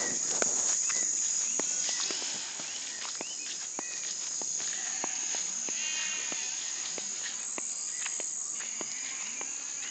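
Night insect chorus, a steady high-pitched drone, with scattered light clicks and rustles and a short rapid trill about six seconds in.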